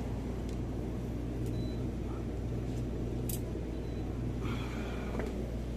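Steady low electrical hum of a refrigerated drinks cooler standing open, with a few faint high beeps and light clicks. Near the end there is a brief rustle as a plastic water bottle is taken off the shelf.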